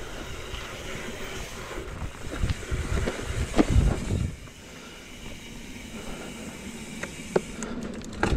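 Mountain bike rolling over a dirt singletrack: wind rushing on the microphone and tyre rumble, with a run of knocks and rattles from bumps between about two and four seconds in and a single sharp clack a little after seven seconds.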